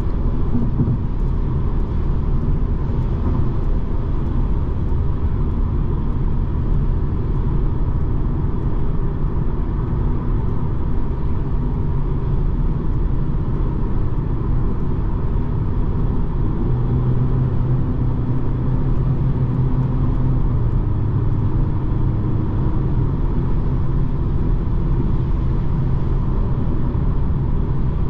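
Steady driving noise from a BMW 220d xDrive Gran Coupe's four-cylinder diesel and its tyres on the road, a constant low rumble. A deeper hum comes up for a few seconds past the middle, then eases back.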